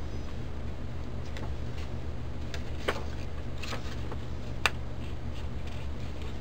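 Fingernails picking at the stuck backing of a strip of tearaway tape on a paper card: a few light clicks and scratches, the sharpest one about four and a half seconds in. A steady low hum runs underneath.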